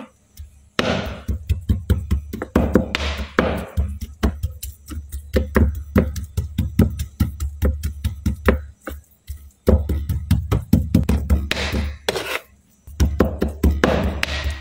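Chef's knife rapidly chopping raw peeled shrimp on a plastic cutting board: a quick run of knocks, several a second, with two short breaks in the latter part.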